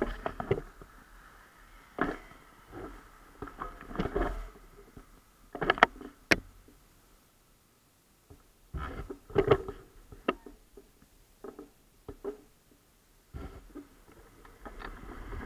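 Irregular clusters of knocks and rattles from a bicycle-mounted action camera in its waterproof housing, jolting over bumps in the road, with a quiet gap around the middle. Near the end a steady rushing noise rises as a car approaches.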